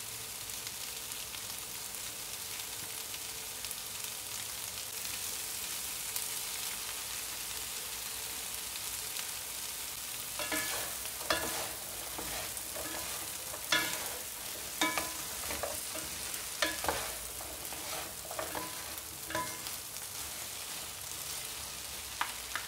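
Long beans, carrots and bell pepper sizzling in a hot oiled nonstick frying pan, with soy sauce just poured in. From about ten seconds in, wooden utensils stir and toss the vegetables, making repeated short scrapes and knocks against the pan over the steady sizzle.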